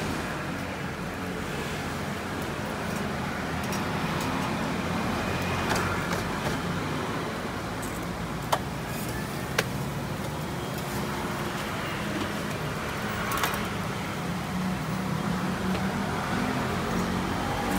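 Steady hum of road traffic, with two sharp clicks about a second apart near the middle.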